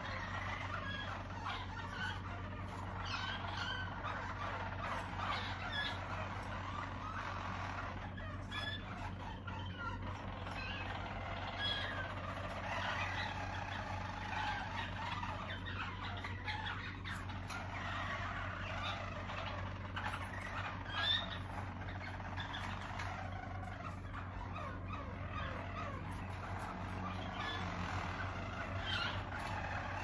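Harzer Roller canaries singing their rolling song, several birds' phrases overlapping without a break, over a steady low hum.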